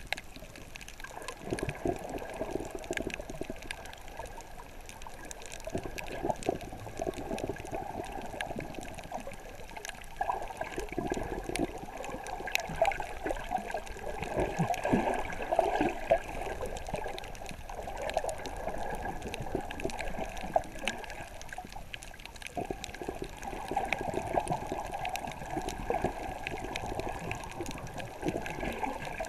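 Water sloshing and bubbling around a camera held underwater, swelling and fading every few seconds, with faint scattered clicks.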